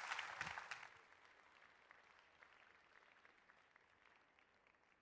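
Audience applause fading out: loud for about the first second, then dropping sharply to faint scattered claps that die away.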